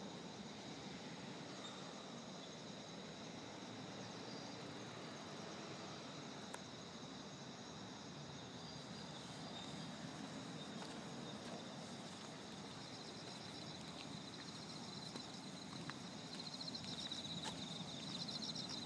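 Insects trilling steadily, a high pulsing chirr that grows louder in the last few seconds, over a faint low background hum.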